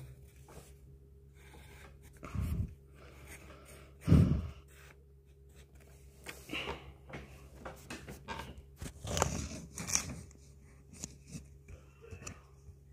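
Pencil drawing on paper: scattered faint strokes and scratches, with two dull thumps about two and four seconds in.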